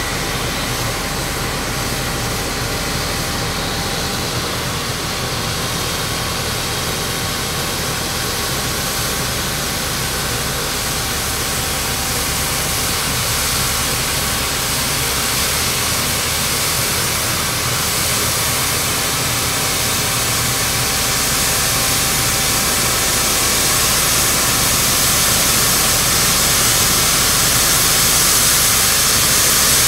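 Excavator-mounted vibroflot (vibro replacement stone-column probe) running as it sinks into the ground, together with the excavator's engine: a steady noisy machine sound with a faint steady whine, growing slowly louder.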